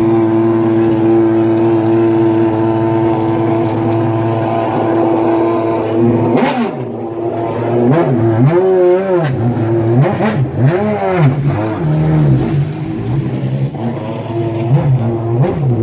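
Maserati MC12's V12 engine running at a steady speed, then blipped repeatedly from about six seconds in, its pitch rising and falling with each rev. Two sharp cracks come with the revving, one right as it starts and one about four seconds later.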